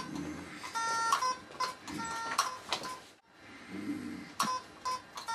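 A Morse code system keyed with two head switches: sharp switch clicks, each followed by an electronic beep, some short single beeps and some longer two-note tones, in an uneven rhythm as a message is sent.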